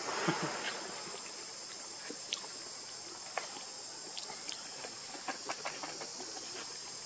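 Outdoor tropical ambience: a steady high-pitched insect drone, with scattered soft clicks and rustles.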